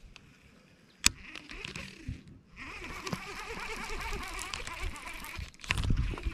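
Baitcasting reel: a sharp click about a second in, then the handle is cranked for about three seconds with a steady gear whir. A dull thump of handling near the end.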